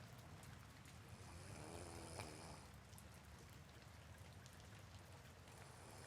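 Soft rain falling steadily, faint, with one faint snore about two seconds in.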